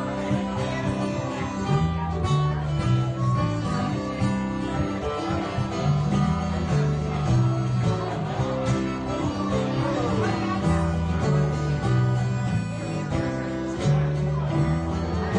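A band playing an instrumental passage led by acoustic guitar, with low notes moving underneath and no singing.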